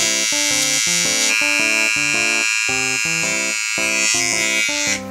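Background music: a fast, bouncy tune of short repeated chords with high held synth tones over them, cutting off suddenly near the end.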